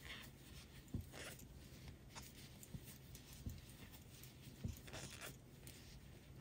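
Faint handling sounds of crocheting in bulky yarn: short swishes of yarn drawn through loops on the hook and a few soft knocks of the hook and hands.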